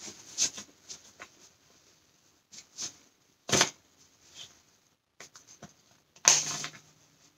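Hands working a cloth diaper cover: fabric rustling and scattered clicks as its snaps are pressed closed, with a sharper click about three and a half seconds in and a brief louder burst near the end.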